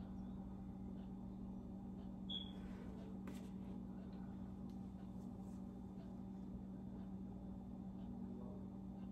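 Quiet room with a steady low hum, and the faint sounds of whiteboard work over it: a short high squeak about two seconds in and a few light ticks soon after, from the felt eraser and dry-erase marker on the board.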